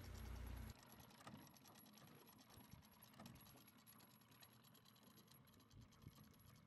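Near silence: faint outdoor background, with a low steady hum that cuts off within the first second.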